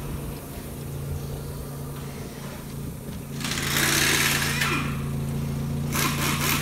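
A Renault Scenic's 16-valve four-cylinder petrol engine idling steadily and smoothly. A louder rush of noise lasts about a second, starting some three and a half seconds in, and a short crackle comes near the end.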